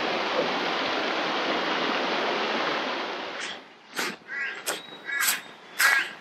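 River water rushing steadily over shallow rapids, fading out about three seconds in. Then a crow cawing in a quick run of about seven short calls.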